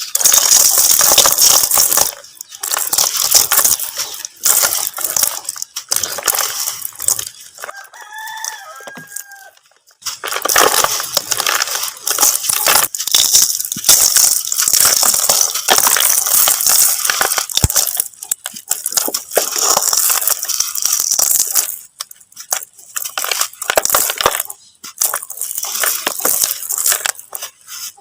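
Mud crumbling with dense crackling and crunching in long stretches broken by short pauses. A chicken calls once in the background, briefly, about eight seconds in.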